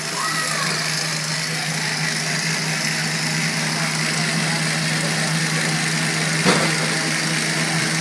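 A chainsaw engine running steadily at a constant pitch, heard close up through a microphone held to the saw. A single sharp knock sounds about six and a half seconds in.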